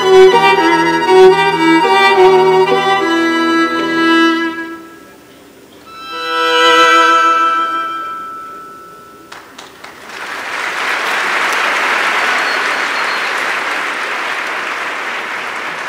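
String quartet of violins and cello playing chords that break off after about four seconds; a single high bowed note then swells and fades away. From about ten seconds in, an audience applauds steadily.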